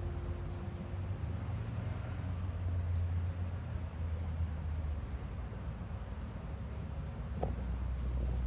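Steady low background hum under a faint even hiss, with one short soft knock about seven and a half seconds in.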